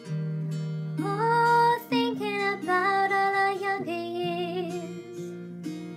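Slow ballad with acoustic guitar accompaniment and a high singing voice entering about a second in, in three phrases. The voice has been pitch-altered to disguise the singer.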